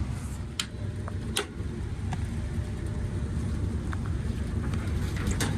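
Rooftop makeup air units and exhaust fans running with a steady low rumble, with a few sharp clicks over it.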